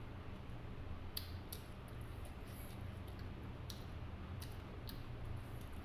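Eating sounds from a bowl of pork noodle soup: a handful of short, sharp clicks and small mouth and utensil noises, scattered over a steady low hum.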